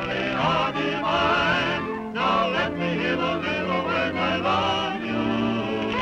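Cartoon characters singing in voices with a wide, wavering vibrato over sustained low notes of the band accompaniment, with short breaks between phrases.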